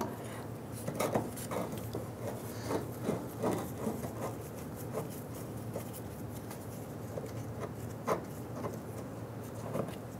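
Light scraping, small clicks and rubbing from a screwdriver turning out a T25 Torx screw and gloved hands working the fuel filler neck and its plastic liner loose in the metal filler pocket. One sharper click comes about eight seconds in.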